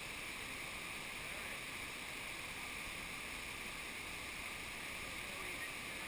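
Steady rushing of a waterfall and of the creek cascading over the rocks below it.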